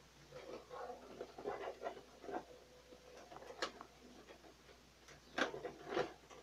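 Plastic housing of an HP OfficeJet 4500 inkjet printer scraping and rattling as the top cover is worked loose and lifted by hand, with a few sharp plastic clicks, the loudest two near the end.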